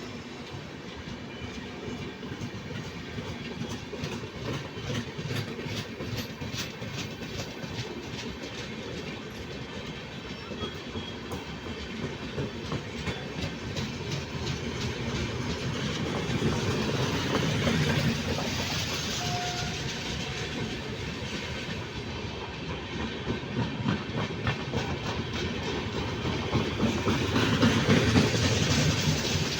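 Indian Railways train running along the track, its wheels clattering rhythmically over the rail joints. The rumble grows louder a little past the middle and swells again near the end.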